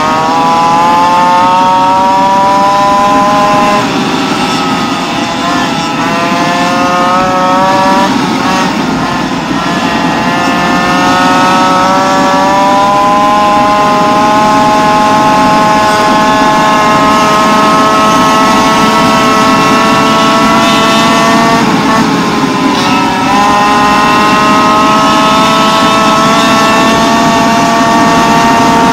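A modified Goped CY47 two-stroke engine with a Know Fear tuned expansion pipe, running at high revs under way. Its pitch climbs steadily as it pulls, then dips briefly off the throttle about four, eight and twenty-three seconds in. Wind noise runs underneath.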